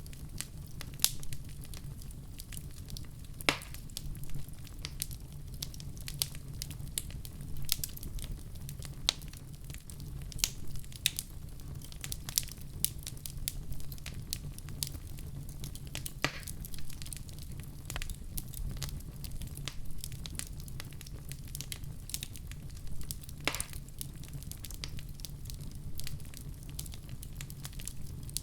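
Wood fire burning in a fireplace: a steady low rumble of flames with frequent scattered crackles and pops, a few louder snaps among them.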